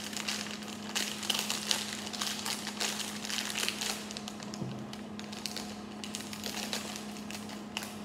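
Thin plastic parts bag crinkling and crackling irregularly as it is handled and opened, over a steady low hum.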